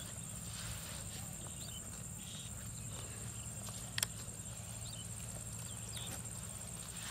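Eels and small fish flapping and rustling in a plastic basket and a fishing net as the catch is picked out by hand, with one sharp knock about four seconds in.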